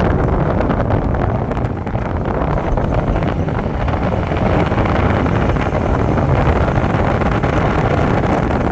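Wind buffeting the microphone together with the rumble of a moving truck, a loud steady roar heaviest in the low end.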